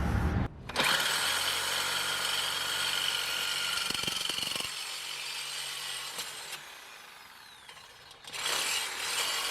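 Power saw cutting through a steel exhaust pipe to remove the resonator, running steadily with a high whine. It grows quieter toward the end, then starts up again shortly before the end.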